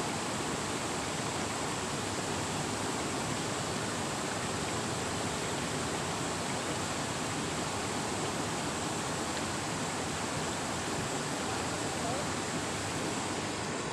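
Fast-flowing river rushing over rocks: a steady, unbroken wash of water noise.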